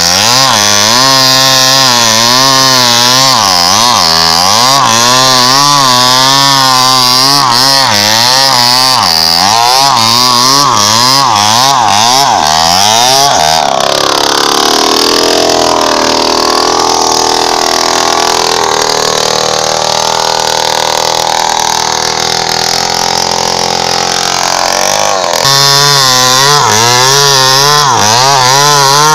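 Falcon two-stroke chainsaw cutting into the trunk of a large teak tree, its engine note wavering up and down under load. About halfway through the note changes and drops a little in level for some ten seconds, then the wavering loaded sound returns near the end.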